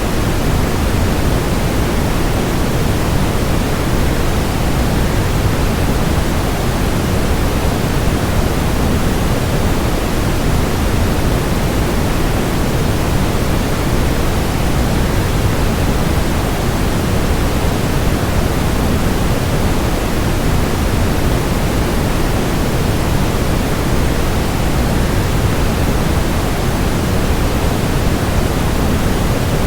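Loud, steady rushing noise, heaviest in the low end and thinning toward the top, with no change or break.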